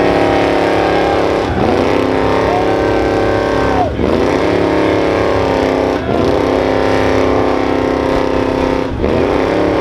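Old pickup truck's engine held at high revs during a burnout, its rear tyre spinning in a cloud of smoke. The revs drop briefly and climb back up about four times.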